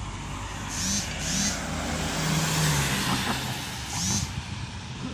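A motor vehicle driving past on the road, its engine and tyre noise swelling to its loudest around the middle and then easing off.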